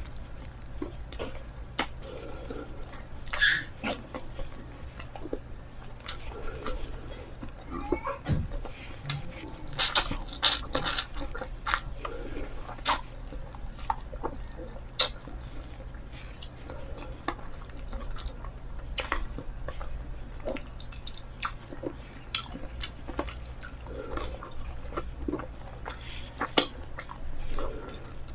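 Close-up chewing and biting of breaded fried chicken, with many short wet clicks and crackles from the mouth and crispy coating.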